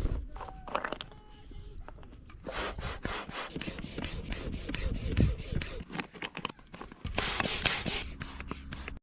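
Rubbing and scraping handling noise with many short clicks and knocks, loudest for about a second near the end.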